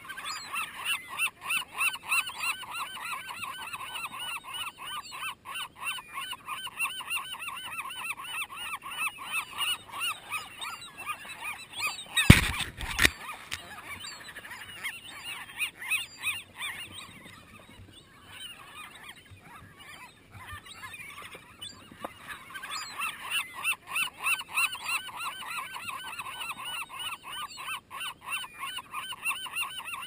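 A flock of gulls squabbling over food, calling in long runs of fast repeated notes that thin out for a few seconds past the middle, then pick up again. A loud, brief thump right at the microphone about twelve seconds in.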